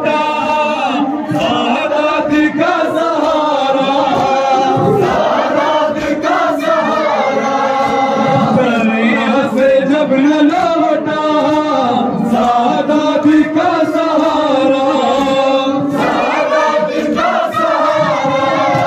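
A crowd of men chanting a Muharram noha (mourning lament) together in a slow, wavering melody, with slaps of chest-beating (matam) among the voices.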